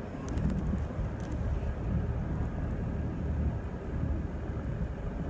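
Wind buffeting the microphone, an uneven low rumble that swells and eases.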